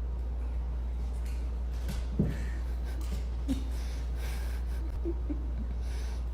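A dog snorting and huffing in short puffs over a steady low hum, with a sharp knock about two seconds in.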